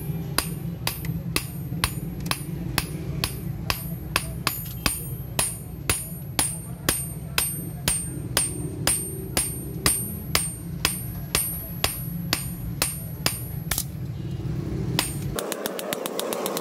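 Hand hammer forging a hot steel knife blade, made from a ball bearing, on a steel anvil block: steady blows about two a second, each with a bright metallic ring. The hammering stops about 15 seconds in, and a faster, finer rattle follows.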